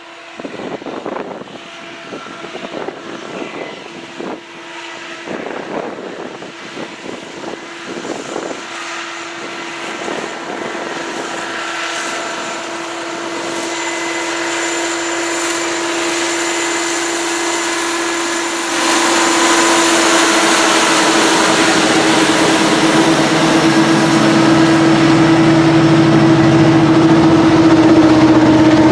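Diesel-hauled freight train led by a GE ET44AC locomotive approaching and passing close by. A steady hum with a single held tone grows louder, jumps up sharply about two-thirds of the way in as the lead locomotive goes by, and the low drone of the trailing diesel engines comes in near the end.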